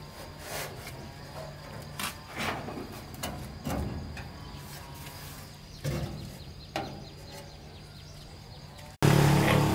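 Scattered light knocks and clicks over a low steady hum. About nine seconds in it cuts abruptly to a louder steady hum with more clicks.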